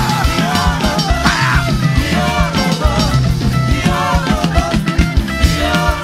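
Loud, upbeat live praise-band music, with a driving drum beat and heavy bass under melodic lines.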